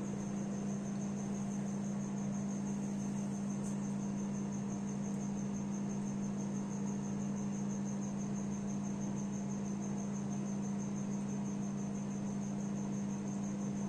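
Microwave oven running with a steady electrical hum, with a faint high-pitched pulsing tone over it.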